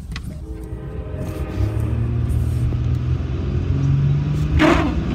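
A car driving on a wet road, heard from inside the cabin: a steady rumble of engine and tyres, with the engine pitch stepping up twice as it speeds up. A short loud sound stands out near the end.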